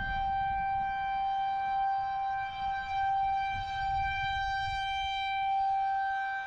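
Outdoor tornado warning siren sounding one steady, unwavering high tone.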